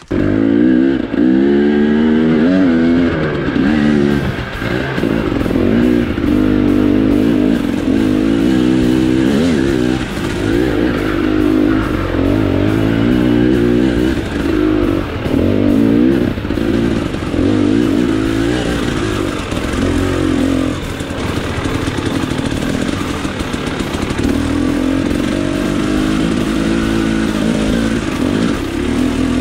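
KTM XC-W enduro dirt bike engine revving up and down over and over as the throttle is opened and shut every second or so under hard trail riding.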